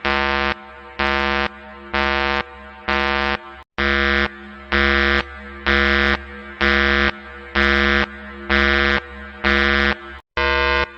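Mock emergency-alert alarm: a harsh, buzzy horn-like tone pulsing on and off about once a second, each blast about half a second long. The sound cuts out completely for an instant twice.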